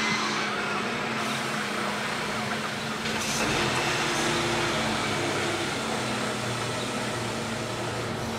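A steady engine drone: a low even hum with a rushing noise over it, holding level throughout.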